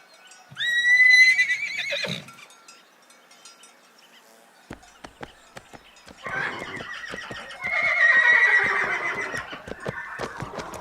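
Horse whinnying twice: a short neigh about half a second in, then a longer, wavering whinny that falls in pitch toward the end, with hooves clip-clopping under it from about halfway.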